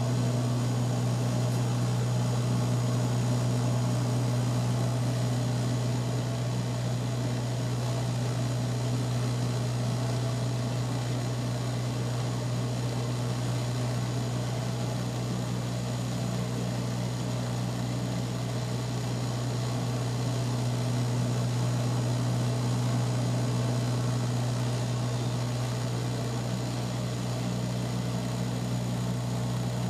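Cabin drone of a Bombardier Dash 8-100 turboprop in flight, heard from a seat beside the propeller: a steady hum with a strong low propeller tone over rushing air noise.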